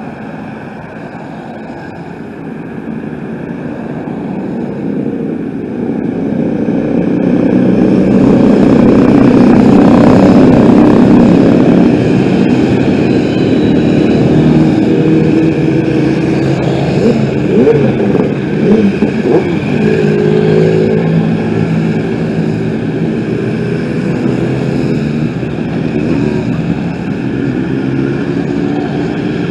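A long procession of motorcycles riding past with engines running, many engines overlapping with pitch rising and falling as riders rev and change gear. Passing cars are mixed in. The sound swells about six to ten seconds in, as the group reaches the roadside.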